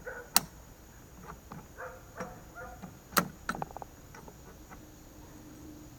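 Metal wrench clinking on a steel nut and threaded-rod axle as the nut is cranked tight, with two sharp clinks, one just after the start and one about three seconds in, and lighter clicks between.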